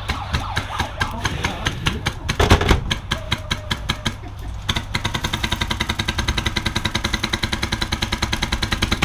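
Airsoft guns firing on full auto: a continuous rapid rattle of about ten shots a second, becoming steadier and stronger about five seconds in, with one heavy thump near the middle.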